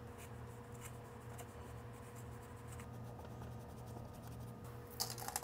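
Paper towel damp with alcohol rubbing over a server's drive backplane circuit board, a faint scratchy wiping, over a steady low hum. A few clicks from handling come near the end.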